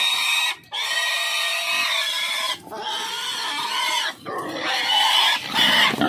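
Several young pigs squealing loudly and almost without a break while crowding a feed trough: long, high-pitched squeals broken by a few short pauses.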